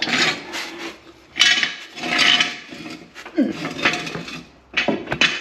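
Metal tools and parts clattering and scraping in several separate bursts, a few of them loud.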